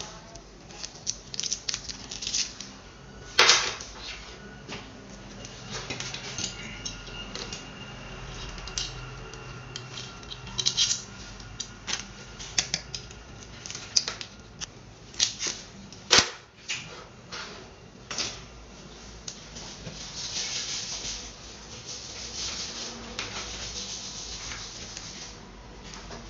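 Irregular clicks, taps and knocks of a sensor soap dispenser's metal body, fittings and cables being handled against a sink counter, with a sharper knock about three and a half seconds in and another near the middle. A rustle of cable and hands rubbing comes near the end.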